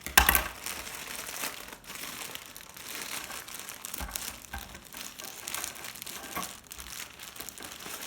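Packaging crinkling and rustling in irregular handling bursts as animated figures are pulled out of it, loudest about a second in.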